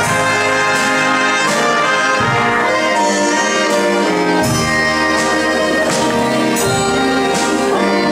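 Live big band playing ballroom dance music, the brass section of trumpets and trombones to the fore over a steady beat marked by regular cymbal and drum hits.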